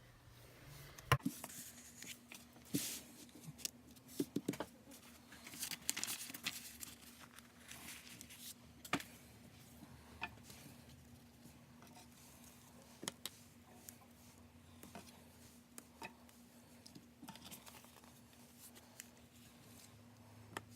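Scattered small clicks, taps and crinkly rustling from washi tape rolls and packaging being handled, busiest in the first half. A faint steady hum comes in with a sharp click about a second in.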